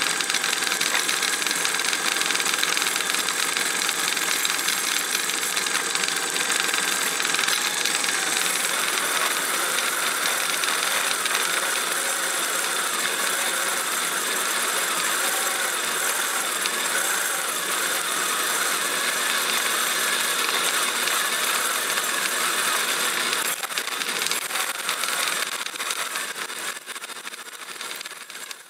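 Drill press running, its bit cutting down into a solid aluminium block, a steady motor and cutting sound that grows quieter over the last few seconds.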